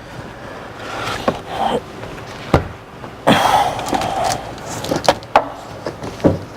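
Rubber door-opening weatherstrip being pulled off the car's door frame by hand: a run of sharp clicks and knocks, with a longer rustling scrape about three seconds in.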